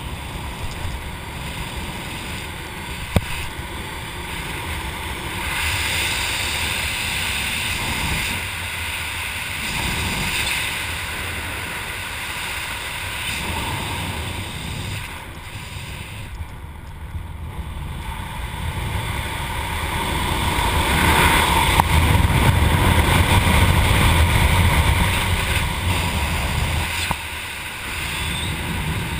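Wind rushing over the helmet camera's microphone while flying under an open parachute canopy, swelling louder about two-thirds of the way through and dropping back near the end. A single sharp click about three seconds in.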